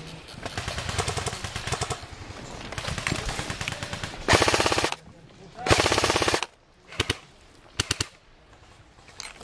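Airsoft guns firing on full auto: rapid strings of shots early on, then two loud bursts of about half a second each in the middle, then a couple of short bursts near the end.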